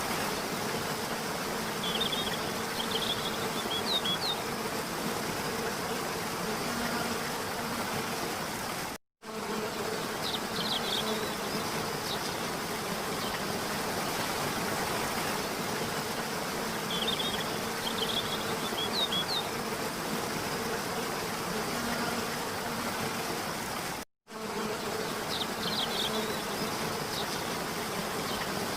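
Waterfall water rushing steadily, with short high bird chirps four times. The sound cuts out for an instant twice, where the recording loops.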